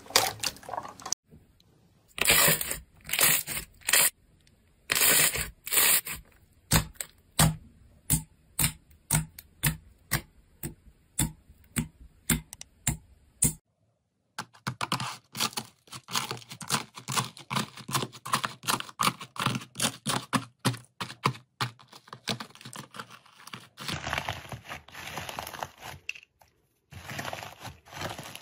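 Hands squeezing, pressing and pulling slime, giving sticky crackling and tearing sounds. In the first half they come as separate squelches about once a second; from about halfway through they become a dense run of rapid crackles.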